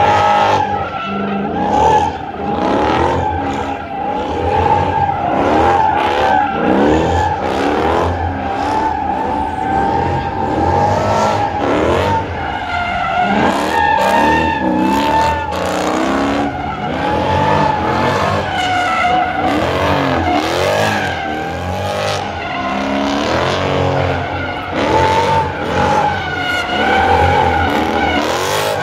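A car doing donuts: its tyres squeal without a break while the engine revs up and down over and over.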